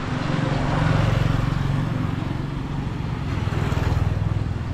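Engine of a road vehicle running close by, a low steady engine note that grows louder about a second in.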